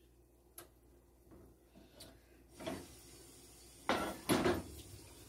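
Kitchen handling sounds: a faint click early on, then a couple of sharp knocks and clatters about four seconds in as a ceramic pie dish and cookware are handled over the gas stove grates.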